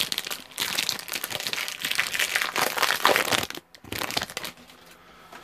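Plastic wrapper of a Yu-Gi-Oh! Duelist Saga booster pack crinkling as it is torn open by hand, dense crackling for about three and a half seconds, then one shorter burst about four seconds in before it quiets.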